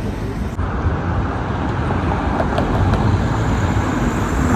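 Road traffic passing: a steady rumble of cars.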